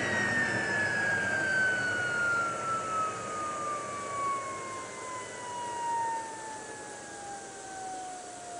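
Ford 6.0L Powerstroke diesel's turbocharger spinning down with a long whistle that falls slowly and steadily in pitch, with no engine sound under it.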